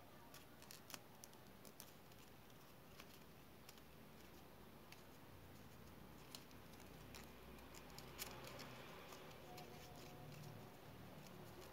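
Faint, irregular clicks and rustles of stiff paper strips being handled and woven by hand.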